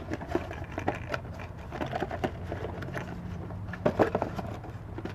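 Light clicks and knocks of small plastic oil-filter parts being handled, with a few louder knocks about four seconds in, over a low steady hum.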